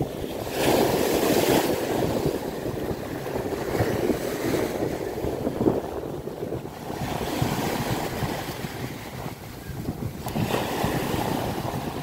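Sea waves breaking and washing up the shore, swelling and fading every few seconds, with wind on the microphone.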